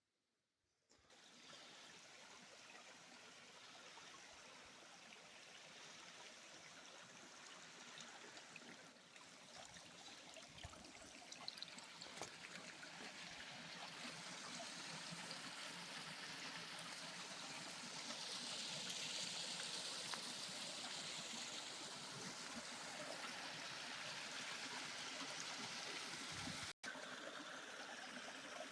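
Mountain stream flowing: a steady rush of running water that starts about a second in and grows gradually louder.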